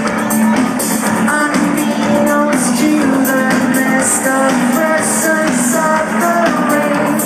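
Live metal band playing loudly through a festival PA, heard from within the crowd: distorted guitars carry a shifting melody over drums.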